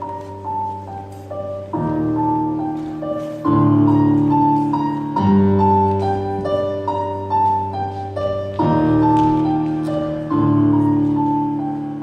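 Slow piano music: sustained low chords changing about every two seconds under a repeating melody of short notes.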